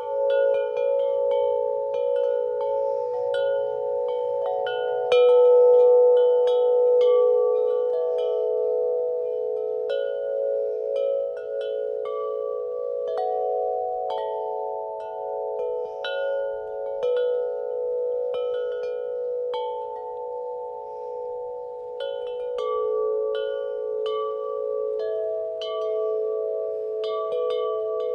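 Wind chimes ringing irregularly in the wind. Frequent strikes keep several notes sounding and overlapping as they ring on.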